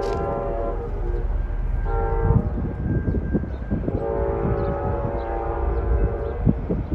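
Amtrak Wolverine locomotive's air horn sounding a multi-note chord in the distance. A long blast fades out about a second in, a short blast comes about two seconds in, and another long blast runs from about four to six seconds in: the closing long–short–long of the grade-crossing signal. A low rumble sits underneath throughout.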